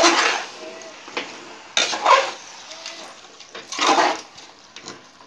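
A spoon scraping and stirring raw chicken pieces coated in chilli powder and spices inside an aluminium pressure cooker. The loudest strokes come about every two seconds, with softer scraping between them.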